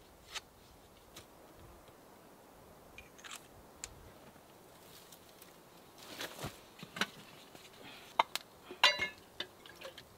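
Sparse small crackles and clicks of a twig campfire being stoked and catching, then a few sharper metal clinks, one briefly ringing, as a camp pot is handled near the end.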